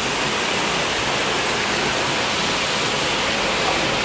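Steady rushing of falling water from a waterfall.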